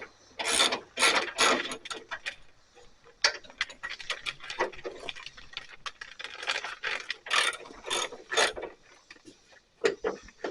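Ratchet wrench clicking through a run of short, irregular strokes.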